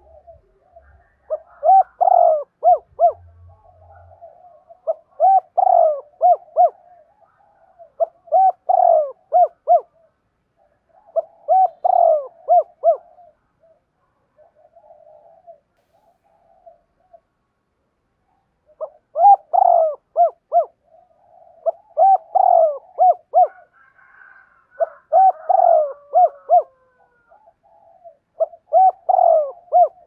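Male spotted dove cooing its territorial call, used as a decoy call to draw wild doves. Eight multi-note phrases about three seconds apart, with a pause of several seconds in the middle.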